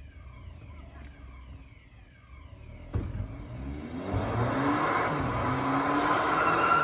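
An alarm sounds faintly in repeating falling tones, about two a second. A sharp thump about three seconds in, then a car engine revs hard, rising in pitch, as the car accelerates away with growing tyre and road noise.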